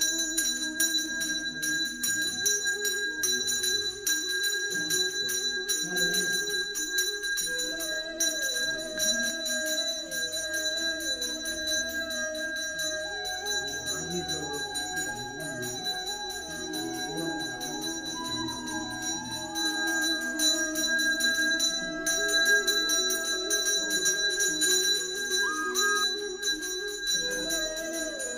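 Small brass hand bell rung rapidly and continuously during an aarti lamp offering, with melodic music playing along.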